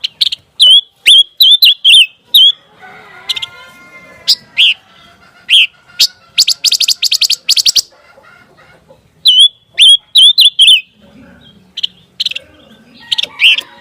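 Panca warna songbird singing: groups of sharp, high chirp notes, with a fast trill of about eight notes a second in the middle, then more chirps.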